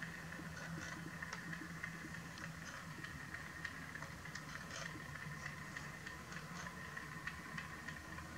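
Small motor of a rotating display turntable running, a steady low hum with many small, irregular ticks from its drive.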